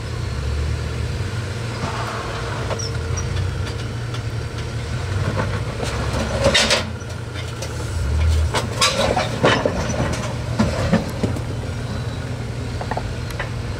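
Jeep JL Wrangler Rubicon crawling up a rock obstacle at low speed: a steady low engine rumble with irregular sharp knocks and scrapes as it works over the rock, bunched together in the middle of the stretch.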